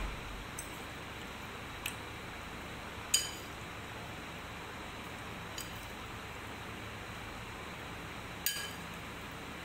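A serving spoon clinking against a glass baking dish while spreading filling: four short, sharp, ringing clinks spaced irregularly, the loudest about three seconds in, over a steady faint hiss.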